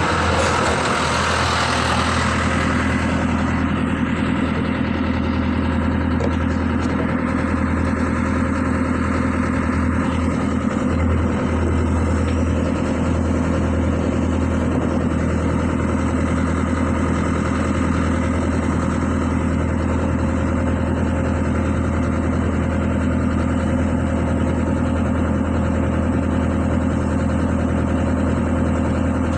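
Excavator's diesel engine idling steadily. A brief hiss in the first couple of seconds fades under it.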